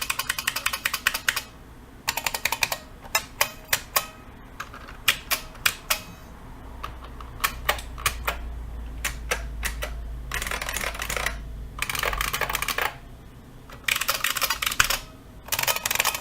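IBM Model M SSK (Space Saving Keyboard) buckling-spring keyboard being typed on: fast runs of loud clicking keystrokes, with a stretch of slower single key presses in the middle.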